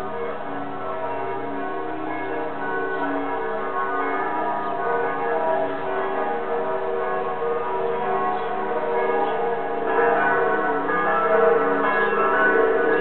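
Several church bells ringing together, their tones overlapping and sustained. The peal grows louder about ten seconds in.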